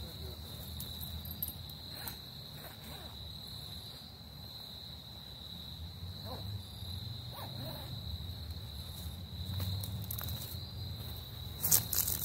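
Crickets trilling in one steady high-pitched tone, over a low rumble of wind on the microphone. Near the end, footsteps crunch on dry leaves.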